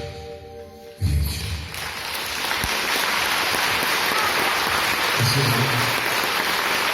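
The last chord of the song's accompaniment dies away, with a final low note about a second in; then the audience breaks into steady applause.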